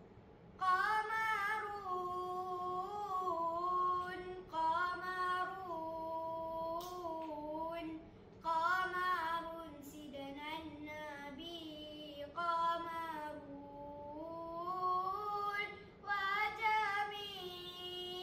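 A boy's voice chanting selawat, the Islamic devotional praise of the Prophet, unaccompanied. Long drawn-out notes bend up and down in pitch, in about four phrases with short breaths between.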